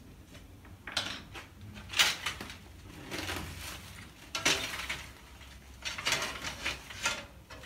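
Metal frame parts of a Salut-2 folding kayak clinking and rattling as they are handled and sorted, with rustling of their plastic bag, in irregular bursts about a second apart.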